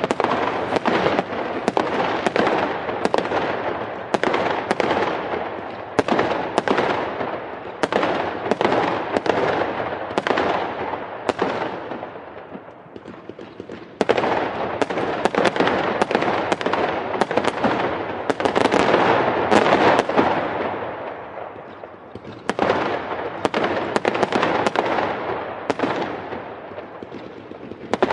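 Fireworks going off in a rapid, dense barrage of bangs and crackles, which eases off twice and then starts up again.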